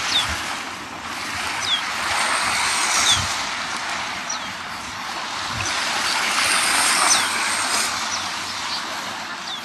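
Sea waves washing on a sandy beach, a steady surf noise that swells and eases. Over it a bird repeats a short, high call sliding downward every second or so, and there are a few low thumps.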